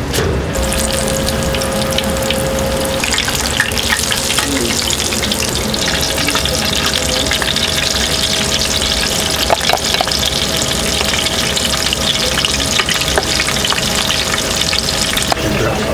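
Tempura deep-frying in hot oil: a steady sizzle with dense crackling. It starts about half a second in and stops near the end.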